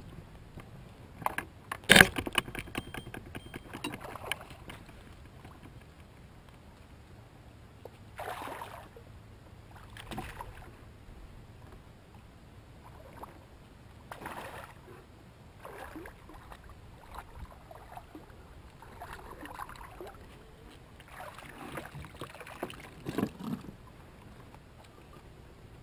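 A sharp knock about two seconds in, then a spinning reel clicking rapidly for a couple of seconds on a hooked fish. After that, the fish splashes at the surface several times as it is played to the net, most of all near the end.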